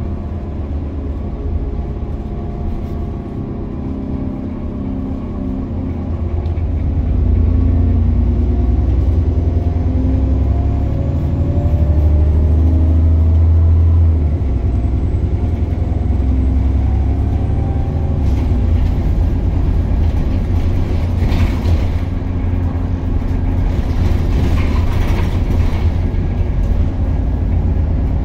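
Alexander Dennis Enviro 400 double-decker bus on a Dennis Trident chassis on the move, heard from a seat in the saloon: a steady low engine and road rumble. The engine note climbs and grows louder from about six seconds in, then drops back suddenly around fourteen seconds, like a gear change. A few short rattles come later.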